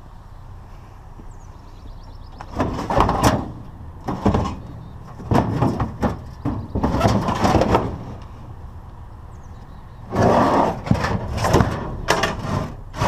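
Handled scrap being moved and loaded: loud bouts of clattering and scraping, one run starting about two and a half seconds in and another near the end.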